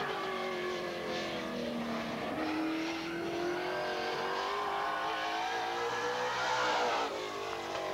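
Super late model stock car's V8 engine running on the track: the pitch falls off, then rises steadily for several seconds as it accelerates, and drops again near the end.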